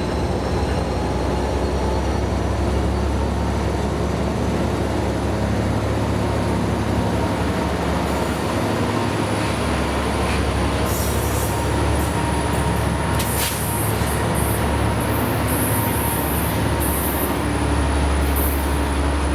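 A diesel train running at the station: a steady low engine rumble with a thin, high, steady whine. From about halfway through, short bursts of high hiss come and go. The sound drops away sharply at the very end.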